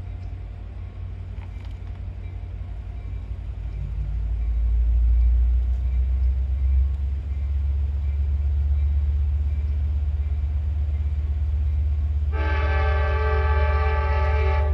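Train horn sounding one long, held multi-note blast near the end, over a steady low rumble.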